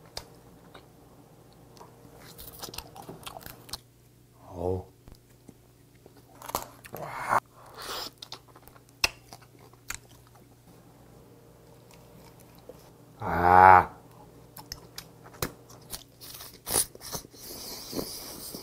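Close-miked eating of steamed snow crab legs: crunching and crackling of shell, chewing, and meat pulled from the legs by mouth, in scattered clicks. The eater makes two short voiced sounds, about five seconds in and again near thirteen seconds, the second the loudest.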